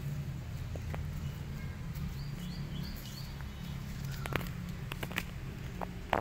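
Outdoor background with a steady low rumble, and small birds chirping: a quick run of short high notes about two to three seconds in. A few short clicks follow later.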